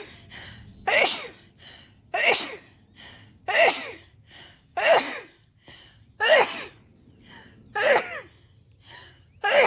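A woman sneezing in a rapid fit: seven loud sneezes, about one every second and a half, with a softer sound between each.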